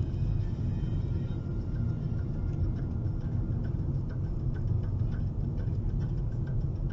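Steady low road and engine rumble of a car driving, heard inside its cabin, with a few faint ticks.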